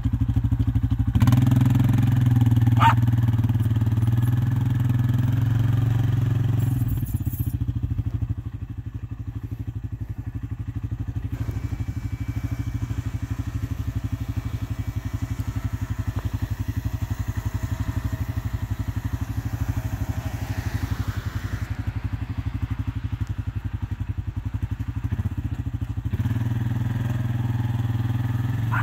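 ATV engine running while towing a bale unroller carrying a round hay bale. It is louder for the first several seconds, settles to a lower, steady running from about eight seconds in, and picks up again near the end.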